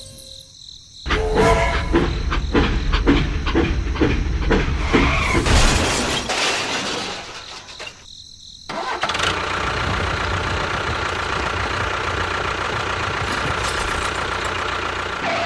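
A vehicle engine turns over roughly with uneven strokes and a low rumble, dies away, then runs steadily from about nine seconds in.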